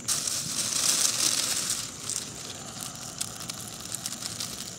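Dry leaf tinder crinkling and crackling as it is handled and lit over a small flame. A loud hissing rush fills the first two seconds, then gives way to lighter, scattered crackles.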